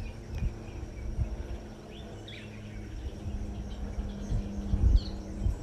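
Quiet background with a steady low hum, a few faint bird chirps and scattered soft low knocks.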